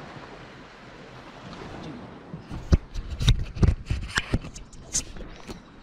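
Faint steady background noise, then from about halfway a quick, irregular run of about a dozen sharp knocks and clicks, the sound of hard objects being handled.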